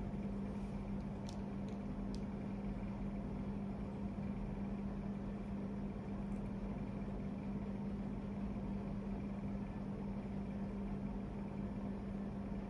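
A steady low hum over faint room noise, with two faint clicks a second or two in.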